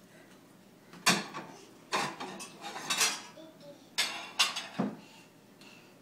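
Dishes and cutlery clattering as a dishwasher is unloaded: a run of about seven sharp knocks and clinks, some with a short ring after.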